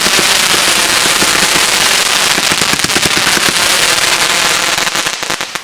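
Firecrackers going off in a rapid, dense run of loud pops, dipping briefly near the end.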